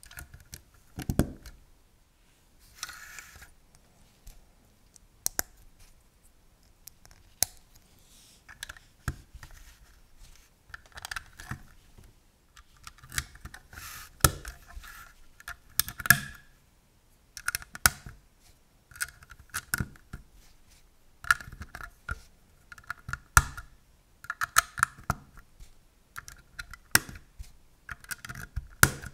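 LEGO plastic bricks being handled and pressed onto a model, giving irregular sharp clicks and snaps with small plastic clatters in between.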